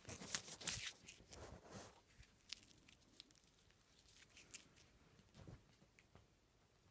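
A crumpled plastic fudge-bar wrapper crinkling and crackling as it is handled. It is busiest and loudest in the first two seconds, then gives only a few scattered faint crinkles.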